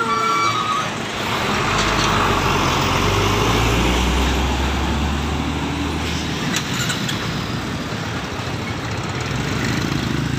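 Heavy diesel trucks passing close by on a highway, their deep engine drone and tyre noise swelling to a peak a few seconds in, then easing off as they pull away.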